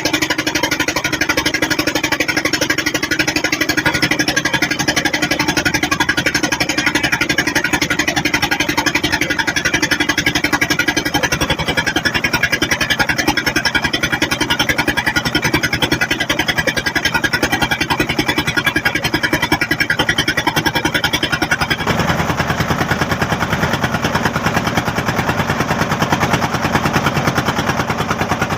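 River boat's engine running steadily with a fast, even knocking beat; its tone shifts about 11 seconds in and again about 22 seconds in.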